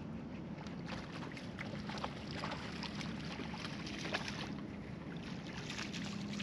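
Steady low hum of a fishing boat on the water, with a run of irregular light clicks and splashy ticks through the first few seconds.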